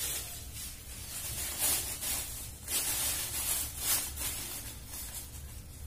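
Thin plastic carrier bag crinkling and rustling as it is handled and opened, in uneven bursts, the loudest about two, three and four seconds in.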